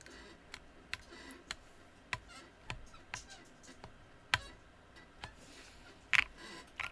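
Single key presses on a mechanical keyboard with lubed linear-feel switches and MT3 keycaps, one keystroke at a time about every half second, with a louder pair of strokes near the end.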